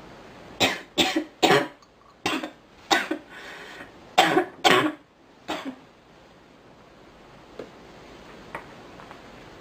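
A girl coughing: about eight short, sharp coughs in two quick runs, then stopping about halfway through.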